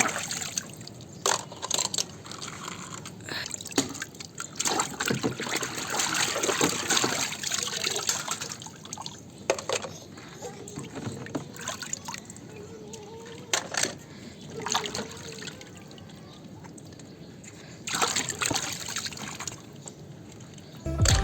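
Water splashing and trickling as plastic toy vehicles are washed, with scattered sharp clicks and knocks of the toys being handled.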